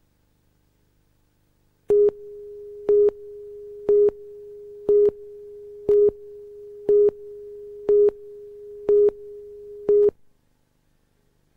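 Videotape countdown leader tone: a steady tone with a louder beep on every second, nine beeps in all as the countdown clock runs down toward two, then cutting off.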